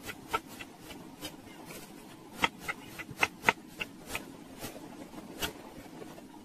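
Kitchen knife slicing an apple on a wooden cutting board: irregular sharp knocks as the blade goes through and strikes the board, most closely spaced between about two and a half and three and a half seconds in.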